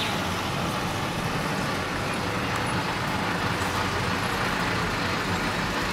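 Classic cars coming up the street one after another at low speed, a steady sound of engines running and tyres rolling.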